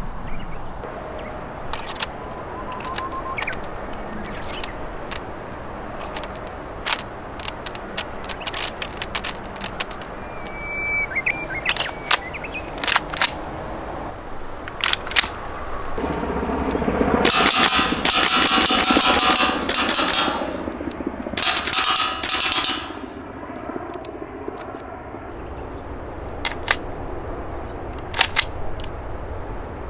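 Noveske N4 gas-blowback airsoft rifle with an MWS-type Z system firing: scattered single shots at first, then two rapid strings of fire about halfway through, the first lasting about three seconds, then a few more single shots near the end.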